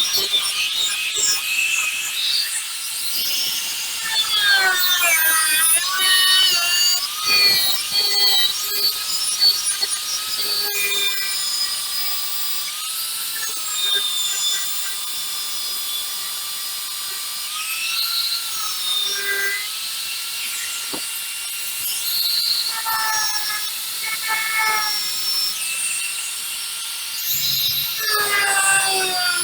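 High-speed rotary power tool whining as it makes rough cuts for holes in a bumper part, its pitch dipping and recovering as it bites and eases off, with a hiss over it.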